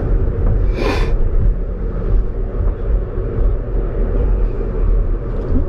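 Steady low rumble of road and engine noise inside a moving car, with a brief hiss about a second in.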